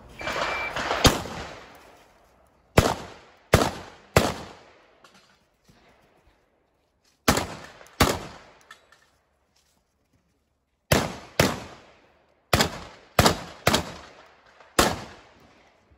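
A short beep, then a shotgun fired about a dozen times in quick groups of two to four shots, with pauses of a few seconds between the groups.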